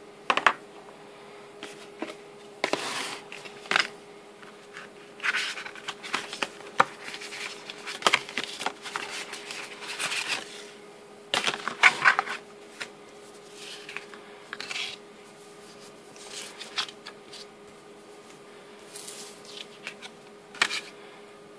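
Hands handling the white cardboard retail box of an iPad mini and its paper inserts: irregular rustles, scrapes and sharp taps of card and paper being slid and pulled, over a faint steady hum.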